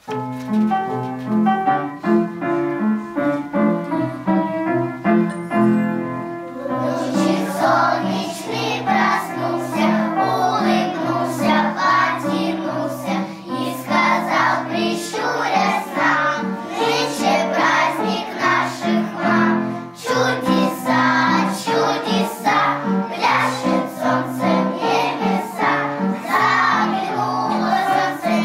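A group of young children singing a song together over instrumental accompaniment. The accompaniment plays alone for about the first six seconds before the children's voices come in.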